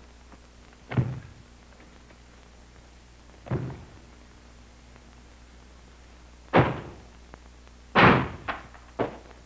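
Heavy door thuds and bangs, about five, spaced a few seconds apart, the loudest near the end followed by a couple of lighter knocks, over a steady low hum.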